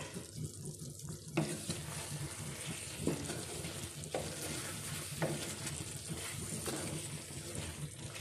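A wooden spatula stirs thick chicken curry in an aluminium karahi over a low flame. The spatula drags and scrapes through the gravy in strokes roughly once a second, starting just over a second in, over a steady sizzle.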